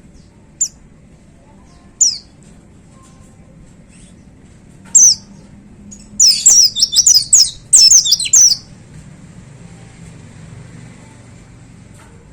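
White-eye (pleci) giving three single sharp, high, falling notes spaced a second or more apart, then a rapid loud burst of song about six seconds in that lasts some two seconds.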